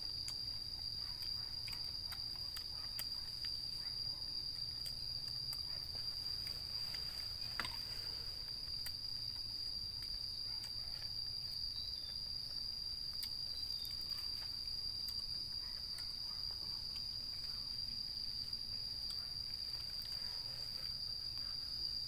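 Insects, likely crickets, trilling in a steady, continuous high-pitched chorus, with scattered faint clicks and one sharper click about seven and a half seconds in.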